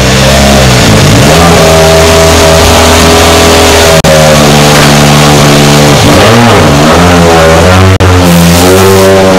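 Toyota Yaris WRC rally car's 1.6-litre turbocharged four-cylinder engine running loud, blipped on the throttle so the revs drop and rise several times, wavering more quickly near the end.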